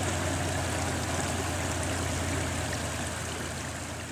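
Praga V3S logging truck's diesel engine running under load as the truck climbs slowly away along a muddy track: a steady low drone under a broad hiss, fading a little toward the end.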